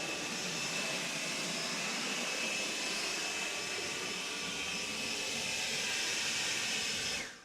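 Air blowing hard and steadily with a rushing hiss and a faint high whine, drying a freshly pressure-washed engine bay; it cuts off suddenly near the end.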